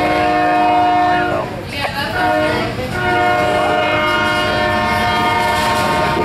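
Leading Union Pacific diesel locomotive's air horn sounding its chord of several steady notes for the grade crossing. One long blast ends about a second and a half in, and another starts about three seconds in and holds, over the rumble of the passing train.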